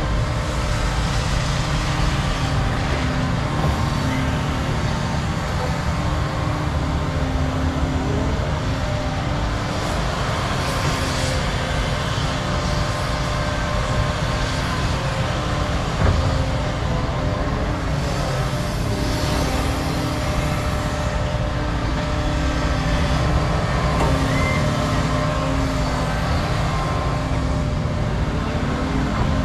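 Hydraulic excavators working: a Cat 335 and a Volvo digging topsoil, their diesel engines giving a steady loud drone that rises and falls with load. A single short knock comes about halfway through.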